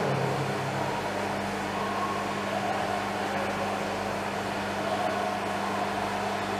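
Steady mechanical hum with a constant low tone over an even hiss.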